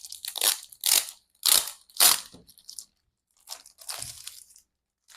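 Packaging of a large boxed album being handled and opened: a run of short crinkling, crunching rustles, about five in the first two and a half seconds and a couple more near four seconds in.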